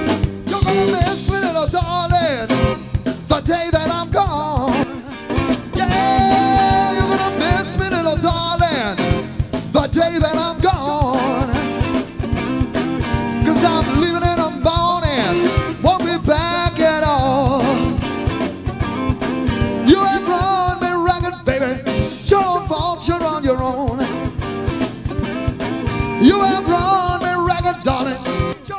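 Live blues-rock band playing: a male singer over electric guitar, bass guitar and drum kit.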